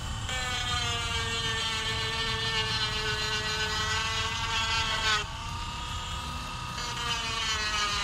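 Cordless Dremel rotary tool running at high speed, its small bit cutting a notch into a crack in a fibreglass rudder: a steady high-pitched motor whine. The pitch sags slowly, then drops and the whine gets quieter about five seconds in.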